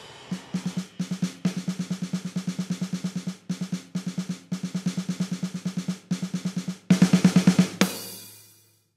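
Background music of rapid drum hits in a steady roll-like rhythm, growing louder near the end, then stopping sharply and fading out.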